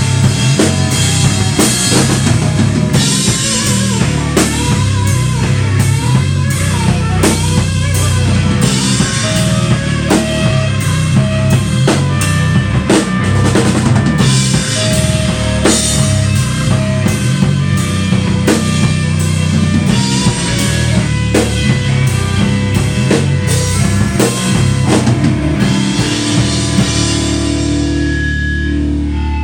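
Live rock band playing: a drum kit keeping a steady beat under electric bass and electric guitar. Near the end the drums stop and the guitar and bass ring out as the song closes.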